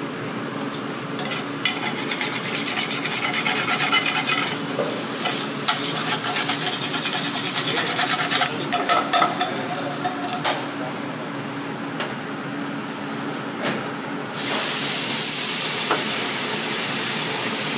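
Food frying in a stainless steel sauté pan, stirred and scraped with a utensil, with light clicks against the metal. About fourteen seconds in, liquid is poured into the hot pan and it suddenly sizzles much louder and steadily as the pan is deglazed.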